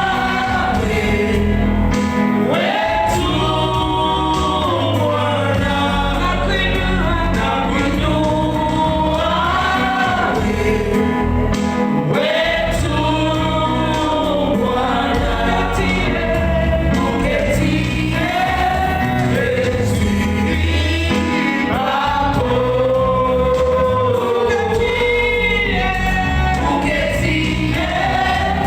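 Congregation and worship team singing a gospel worship song with instrumental accompaniment.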